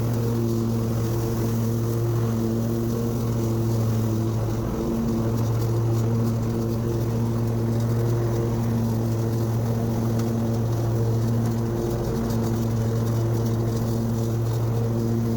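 Husqvarna mower engine running steadily under load as it cuts grass, with a brief dip in the engine note about five seconds in and again about twelve seconds in.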